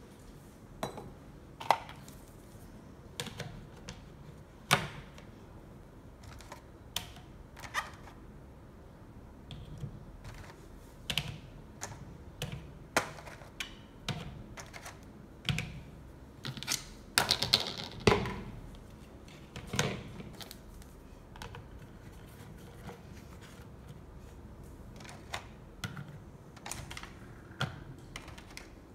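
Eggs being taken from a plastic carton and set one by one into the plastic racks of a two-tier electric egg boiler, with the plastic trays clacking into place: irregular sharp clicks and knocks, with a busier, louder run of clatter about two thirds of the way through.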